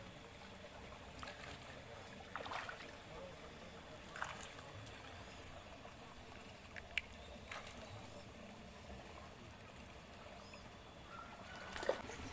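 Faint, steady outdoor background noise beside a fish pond, with a few scattered short taps and clicks, the loudest near the end.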